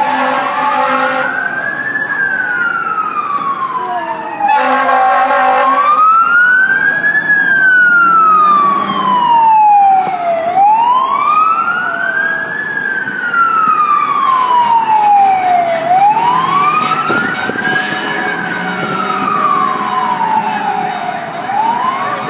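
Fire truck's siren in a slow wail, rising and falling about every five seconds. Its heavy air horn blasts over the siren near the start and again about four and a half seconds in.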